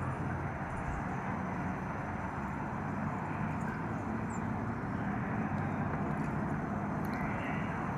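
Steady outdoor background rumble of distant traffic, a constant low hum and hiss with no distinct events.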